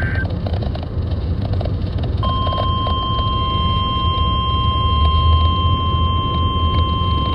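NOAA Weather Radio required weekly test. The digital SAME header tones end right at the start. About two seconds later the steady 1050 Hz warning alarm tone comes on and holds, over a low hum.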